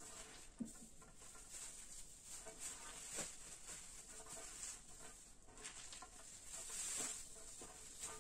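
Handfuls of finely shredded cabbage and carrot being tossed and mixed by hand on a glass tabletop: a soft, crisp rustling with a few light crunches.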